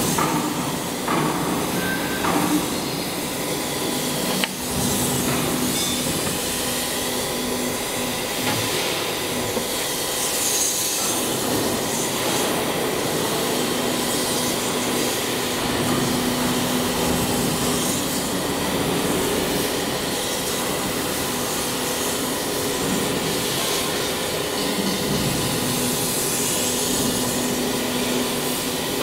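Small 4-roll CNC hydraulic plate rolling machine running: a steady machine noise with faint steady tones under it, and a few short knocks in the first five seconds.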